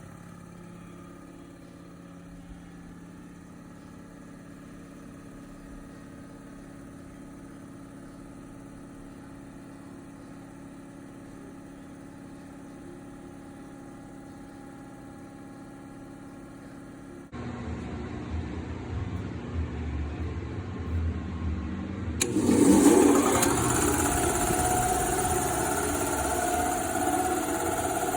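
7.5 hp reciprocating air compressor packages running, heard in turn. First comes a quieter steady hum. About 17 s in it changes abruptly to a louder, deeper running compressor. A sharp click about 22 s in is followed by a louder steady clatter.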